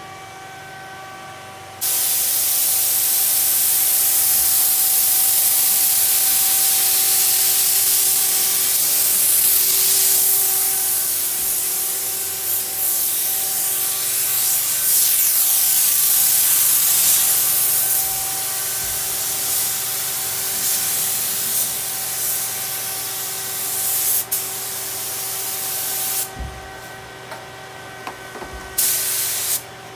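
Suction-feed air spray gun hissing steadily as it sprays paint. It starts about two seconds in, dips for a moment, stops for a couple of seconds near the end, then starts again briefly.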